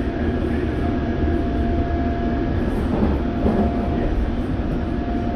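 London Underground District line S7 Stock train running, heard from inside the passenger car: a steady rumble of wheels on track with a thin, steady whine over it.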